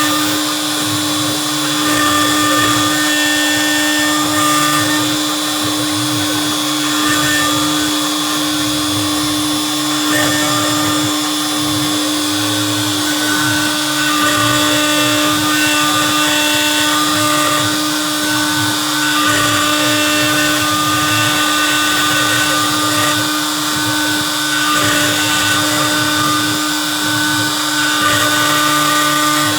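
Spindle of a CNC Piranha benchtop router running with a steady whine while machining a sheet of HDPE plastic.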